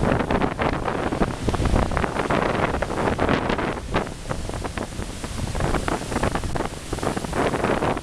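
Storm surf breaking and churning over low rocks, a loud continuous rush of water, with strong wind buffeting the microphone.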